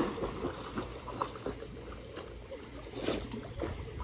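Vizsla puppy paddling through a swimming pool: light splashing and lapping of water.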